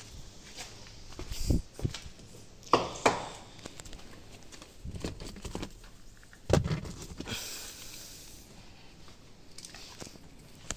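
A few scattered knocks and thumps with rustling between them, from handling and movement around the car; no engine running.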